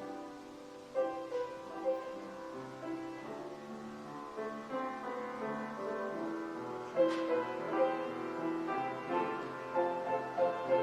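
Piano music starting up and playing slow chords and a melody, the offertory music as the ushers come forward.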